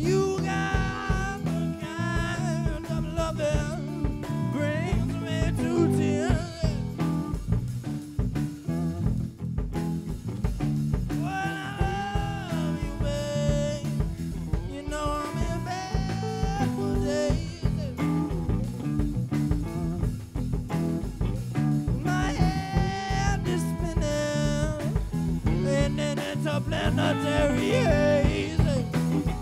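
Live band performance: a male lead singer sings over electric guitar, bass guitar and drum kit. His sung lines come in phrases with short instrumental breaks between them.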